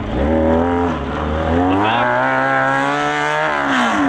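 Mini pulling tractor's engine revving as it is driven on gravel: the revs rise briefly and drop, then climb again and hold high for about a second and a half before falling off near the end.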